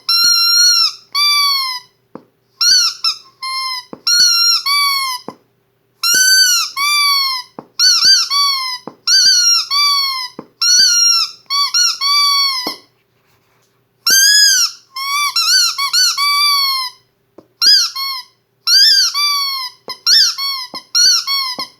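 Squeaky dog toy squeezed over and over: a long string of squeaks, each rising then falling in pitch with a sharp click as it starts, broken by a pause of about a second just past halfway.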